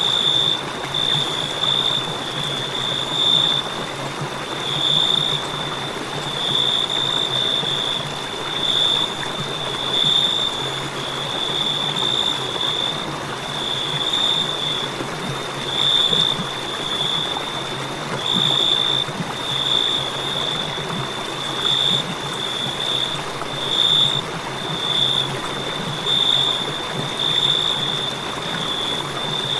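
Crickets chirping in a continuous high trill that swells and fades about once a second, over a steady background hiss.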